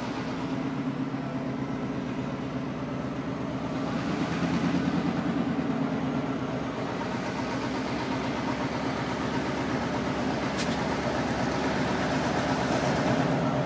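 Two diesel-electric freight locomotives running in tandem as they pull a cut of cars slowly toward and past, a steady engine drone growing gradually louder as they approach.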